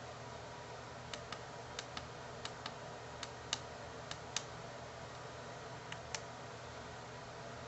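About a dozen light clicks at irregular spacing over a steady faint hiss and low hum.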